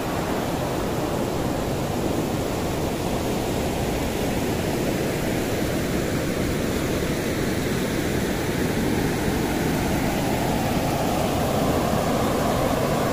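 Steady rush of river water spilling over a low weir, a broad even rumble that grows slightly louder near the end.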